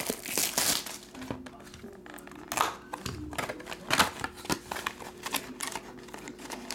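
Plastic shrink wrap crinkling and a cardboard trading card box being handled and opened, in scattered bursts of rustling with a couple of sharp taps.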